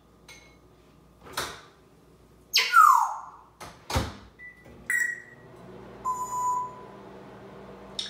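Kitchen sounds of food being prepared: sharp knocks and a clatter, a loud short falling squeak, two short beeps, then a steady low hum as an appliance starts running about halfway through.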